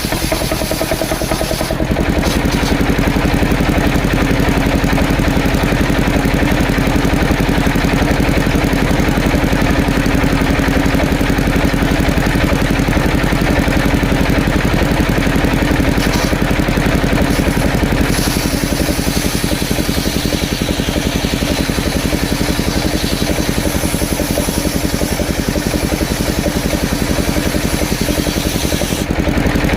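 Engine of a portable circular sawmill running steadily, with a steady tone coming in about two seconds in.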